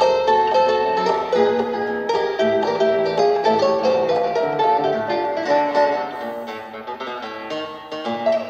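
A cassette recording of plucked-string music played through the HF30 record player's EL86 valve amplifier and speaker: a quick melody of short single notes.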